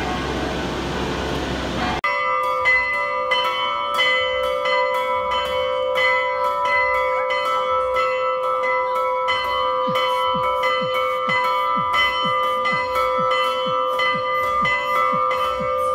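Church bells ringing a fast, continuous peal, strokes following one another several times a second while the tones ring on. The peal starts abruptly about two seconds in, after a short stretch of street noise.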